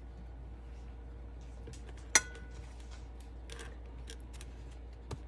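Faint handling of food and kitchen utensils, with one sharp clink about two seconds in that rings briefly, over a steady low hum.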